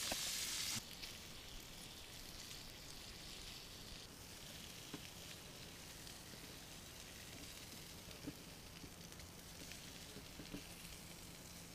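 Bass frying in oil in a small pan: a loud sizzle that drops sharply to a quieter, steady sizzle about a second in, with a few faint pops.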